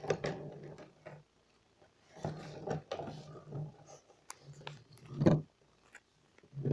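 A hamster's clear plastic exercise ball rolling on a bathtub's enamel, giving a hollow rumble in spurts of a second or so, three times, with small clicks and knocks in between.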